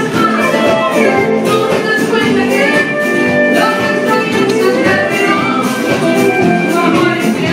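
A live band playing amplified music: long held melody notes over a steady percussion beat.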